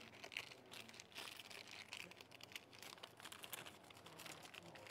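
Faint crinkling of a clear plastic sleeve being handled and pulled off a pool cue, an irregular scatter of small crackles.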